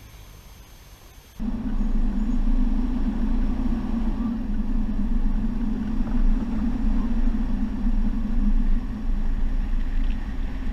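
Faint outdoor background, then a sudden cut about a second and a half in to the loud, steady drone of a 4WD ute driving along a dirt track. The engine, tyres on gravel and wind are heard from a camera mounted on the vehicle.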